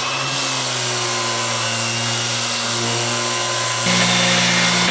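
Electric power sander running on the wooden lid of a tool chest, a loud steady sanding noise over a motor hum whose pitch steps up about four seconds in.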